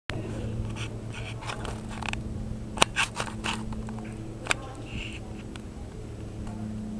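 A horse's hooves scuffing and thudding on soft arena sand as it moves around on a lunge line, with two sharp clicks, one near the middle and one a little later, over a steady low hum.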